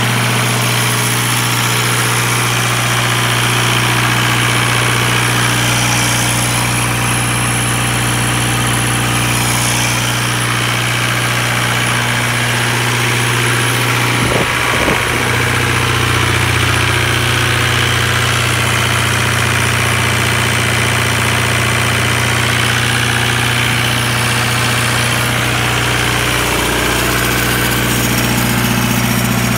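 John Deere 4024 four-cylinder diesel engine of a 30 kW generator set running steadily at governed speed for 60 Hz output, with no load on it. A brief knock about halfway through.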